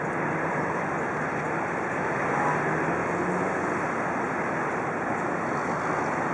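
Steady outdoor noise of road traffic and moving river water, with a low, even engine hum underneath.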